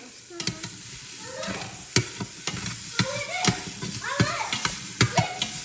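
Food sizzling in a hot pot, with many sharp, irregular pops and crackles over a hiss.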